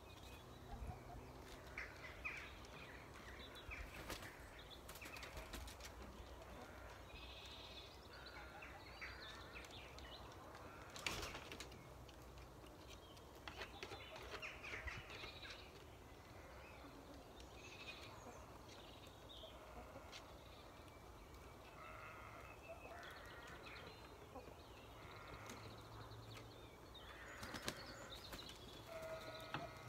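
Faint, scattered calls from chickens settling to roost in trees, with a few sharp flaps or rustles among the branches.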